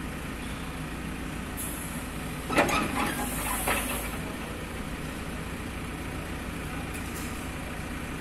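JCB 3DX backhoe loader's diesel engine running steadily. About two and a half seconds in, a clatter of knocks and scraping lasts about a second and a half.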